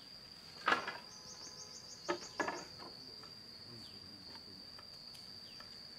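Steady high-pitched insect drone, with three sharp knocks of bamboo poles being handled: one under a second in and two close together about two seconds in.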